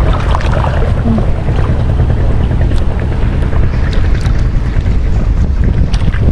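Gusty wind ahead of a rainstorm buffeting the microphone: a steady, loud low rumble.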